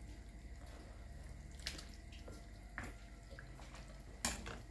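Metal spoon and wooden spatula stirring wet, juicy ceviche in a glass bowl, with three light clinks of utensil against the bowl, the loudest near the end.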